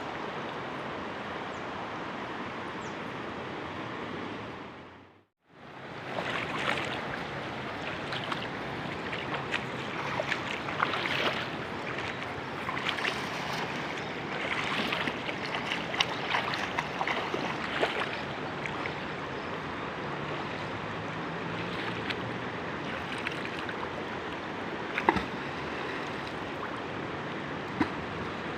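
Steady rushing of river water, with a brief fade to silence about five seconds in. After it comes a stretch of irregular small splashes and crackles, which then give way to the steady water sound again.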